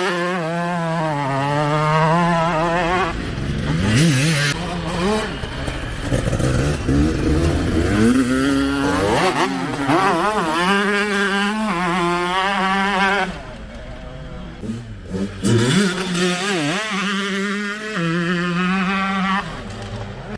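TM MX 125 two-stroke single-cylinder motocross engine being ridden hard, revving up and falling off again and again as the rider works the throttle through the gears. About two-thirds of the way through it drops quieter with a few short throttle blips, then revs up through several more rising runs.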